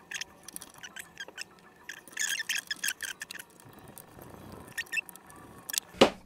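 Small plastic parts and wiring of an opened projector being handled: a run of light clicks and rattles, busiest two to three seconds in. About six seconds in comes a single sharp, louder knock as a part is set down or seated.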